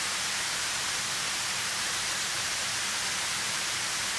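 Water pouring over a dam's spillway and crashing into the pool below: a steady, even rushing hiss.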